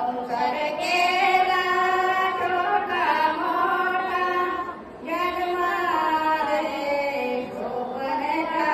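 An elderly woman singing a Marathi abhang (devotional song) unaccompanied, in long held, wavering phrases, with a short breath about five seconds in.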